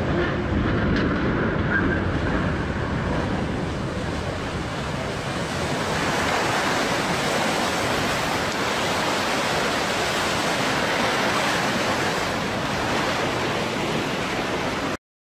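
The launch wave from a sideways ship launch surging up and washing over a riverbank, a steady rush of water that grows fuller and brighter about halfway through, with wind buffeting the microphone. It cuts off suddenly near the end.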